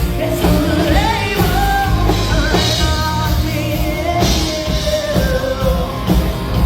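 Rock song with a singing voice over a steady beat.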